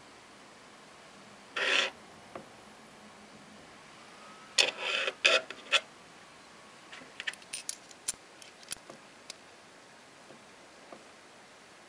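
Hand handling a stainless steel wristwatch: a short rub about one and a half seconds in, a cluster of louder rubbing scrapes around the middle, then a scatter of small metallic clicks and taps.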